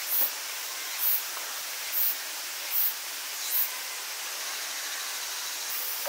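Steady outdoor hiss with five short, very high-pitched chirps about once a second, then a pause and one longer chirp near the end.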